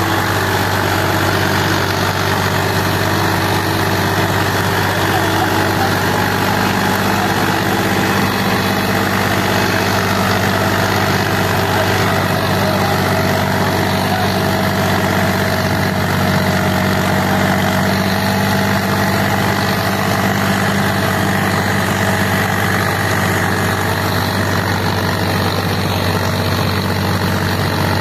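Indo Farm tractor's diesel engine running steadily under load while it pulls a disc harrow through the soil.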